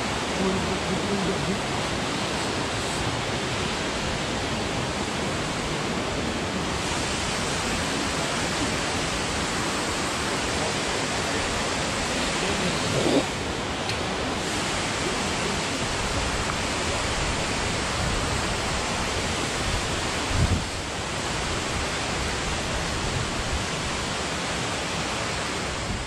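Waterfall: water rushing steadily, a loud, even noise. Two short bumps stand out above it, about halfway through and again a little later.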